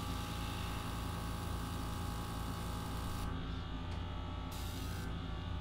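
Small airbrush compressor running with a steady hum while the airbrush sprays air and paint in a hiss. The hiss stops a little over three seconds in, comes back for about half a second, and stops again near the end, while the compressor keeps running.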